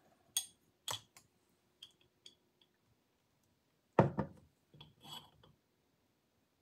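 Glass mason-jar mug handled on a wooden table: a few light clicks and clinks, then about four seconds in a solid knock of the jar against the tabletop, followed by a few softer clinks.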